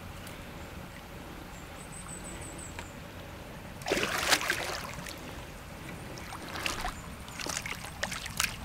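A hooked carp splashing at the water's surface as it is drawn to the landing net: a loud burst of splashes about four seconds in, then scattered smaller splashes near the end.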